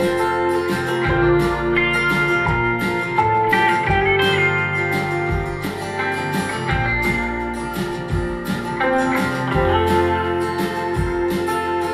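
Acoustic folk music with guitar, played back through a pair of Sharp CP-C411H bass-reflex bookshelf speakers and picked up by a microphone in the room.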